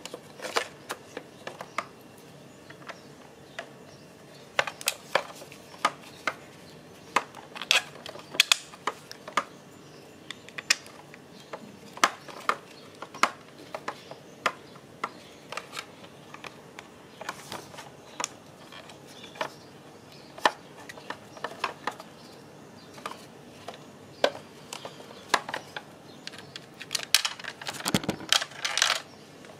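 Irregular sharp clicks and taps of hard parts being handled, with a denser flurry of clatter near the end.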